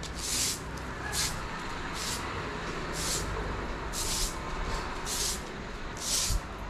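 Broom sweeping a concrete floor, one swishing stroke about every second.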